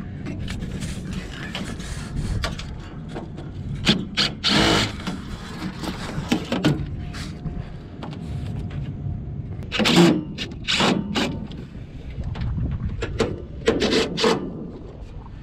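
DeWalt cordless driver with a right-angle attachment, running in several short bursts as it backs sheet-metal screws out of a furnace heat exchanger's side.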